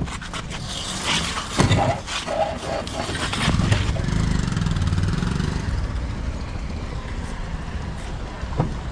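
Bajaj Pulsar NS motorcycle engine running through an Akrapovic full-system exhaust with the dB killer removed. A sharp loud sound comes about a second and a half in, then the engine settles into a steady, deep exhaust note.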